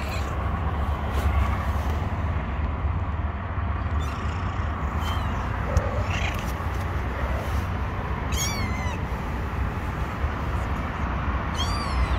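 Young kittens giving a few short, high-pitched meows, faint at first, the clearest about two-thirds of the way in and another near the end, over a steady low rumble.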